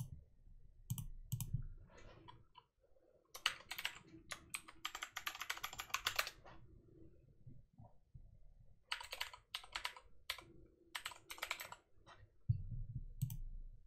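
Typing on a computer keyboard: two quick runs of keystrokes, the first about three seconds in and the second about nine seconds in, with a few single clicks between them. Short low rumbles come near the start and near the end.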